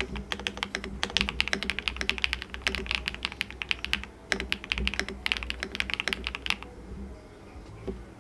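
Typing on a Chosfox Fox65 gasket-mount mechanical keyboard with HMX White Fox linear switches and PBT keycaps: a fast run of key clacks, rich and deep, with a short pause about four seconds in, stopping about six and a half seconds in.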